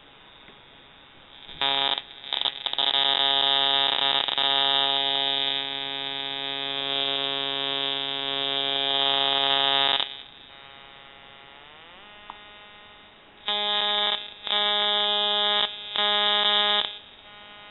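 A 555-timer-driven ignition coil and its high-voltage arc buzzing at the switching frequency. A loud, steady pitched buzz starts about one and a half seconds in and stops at about ten seconds. Then comes a quieter stretch in which the pitch glides as the frequency is adjusted, and a higher-pitched buzz cuts in and out near the end.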